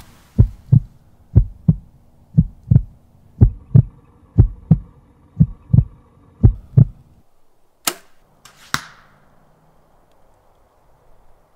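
Heartbeat sound effect: seven slow lub-dub pairs of deep thumps, about one pair a second, stopping about seven seconds in. Then a compound bow shot: a sharp crack and, just under a second later, a second sharp hit with a short ring, the arrow striking the target.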